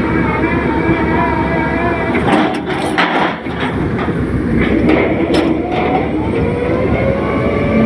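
Heavy construction machinery's engine running steadily, with a series of sharp metallic knocks in the middle and the engine pitch rising near the end.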